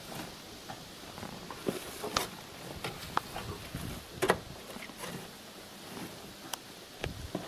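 Irregular scrapes and knocks of a shovel unloading soil from a tractor trailer, with a sharper knock about four seconds in.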